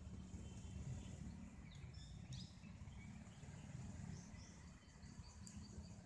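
Faint dry-forest ambience: a steady high insect drone with birds chirping, a few rising chirps about two seconds in and a quick run of short notes near the end, over a low rumble.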